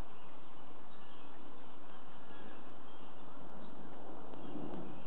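Steady hiss of outdoor background noise picked up by a security camera's microphone, with no distinct events.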